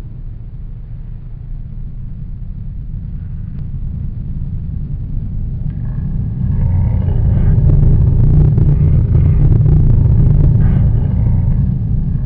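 Ambient film soundtrack: a deep, noisy rumbling drone that grows steadily louder, swelling further about halfway through, with faint higher held tones layered above it.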